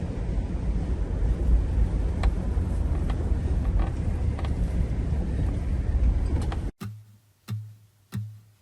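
Steady low rumble of a car driving, with a few faint ticks, cutting off suddenly about two-thirds of the way in. It is followed by soft low thumps about every half second.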